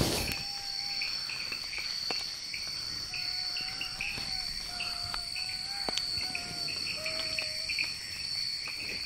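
Night jungle insects: crickets chirping in a quick repeating pattern over a steady high-pitched insect drone. A faint, drawn-out wavering tone rises and falls through the middle, with one sharp knock right at the start.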